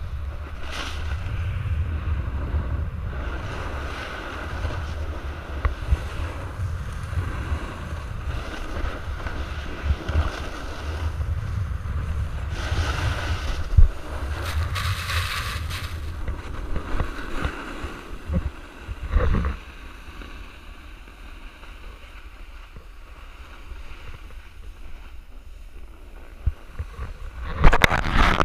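Wind rushing over an action camera's microphone as a skier descends, with the hiss and scrape of skis on packed snow, surging louder about halfway through and easing off later. Near the end, sharp knocks and rubbing as the camera on its pole is handled.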